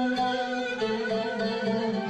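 Instrumental passage of a Turkish türkü: a plucked string instrument playing a melody with bowed strings holding long notes beneath it.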